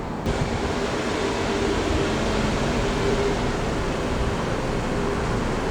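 Steady rumble of a jet airliner's engines mixed with strong wind on the microphone, which starts abruptly just after the start.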